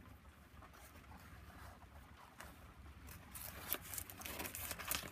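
Crinkly collaged paper pages of a handmade junk journal being handled and turned, rustling and crackling faintly at first and more from about three seconds in, over a faint steady patter of rain on a shed roof.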